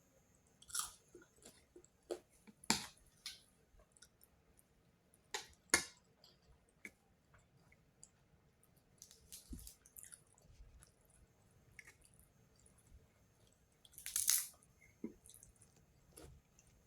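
A cat chewing and crunching its food: irregular wet crunches and smacks, with a few louder bites about one, three, six and fourteen seconds in.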